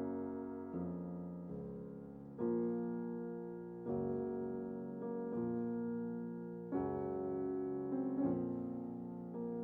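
Background music: slow, gentle piano chords, each struck and left to ring out before the next.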